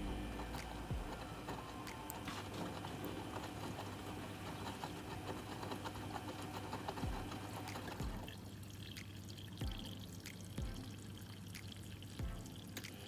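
Vestel washing machine mid-wash: water pouring and sloshing in the drum over a steady low hum, with occasional low thuds. Part of the water noise drops away about eight seconds in.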